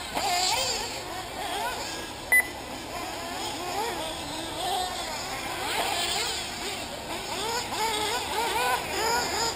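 Several 1/8-scale nitro buggy engines revving up and down as the cars race round the track, their whining pitches rising and falling over one another. A short, loud electronic beep about two and a half seconds in.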